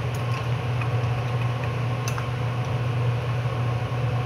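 Steady low hum of the recording setup, with a few light clicks of a computer mouse and keyboard as an administrator password dialog is confirmed; the plainest click comes about two seconds in.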